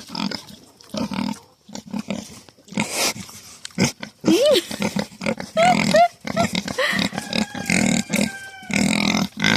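Pigs grunting repeatedly in short low grunts, with a few higher squealing calls partway through.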